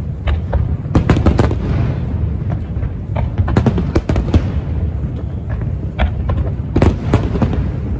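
Aerial firework shells bursting in quick, irregular succession: sharp bangs over a steady low rumble. A dense cluster of bangs comes about a second in, and another loud one near the end.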